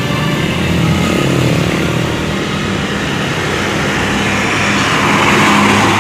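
Bus engine running steadily as the bus moves through the bend, with a broader rushing noise building and getting louder near the end.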